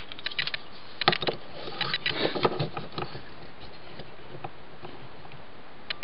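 Small clicks and taps of a plastic Transformers Blitzwing action figure being handled as its joints are moved and posed, clustered in the first few seconds, then a lull and a few more clicks near the end.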